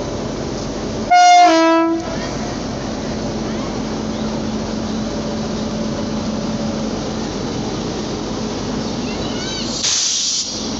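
Train locomotive horn sounding one short two-tone blast about a second in, over the steady rumble of a train moving slowly along the platform. Near the end comes a short, loud hiss of air.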